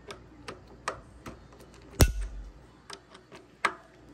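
Wheeler Fat Wrench torque screwdriver tightening a rifle's barrel set screw to about 40 inch-pounds: light clicks a few times a second, with two sharp, louder clicks about two seconds and three and a half seconds in.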